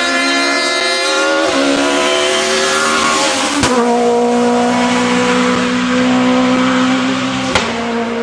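Citroën C2 rally car's engine at high revs, accelerating hard, its note climbing and stepping up through the gears. An abrupt cut about three and a half seconds in leads to a steady, high engine note as the car drives away.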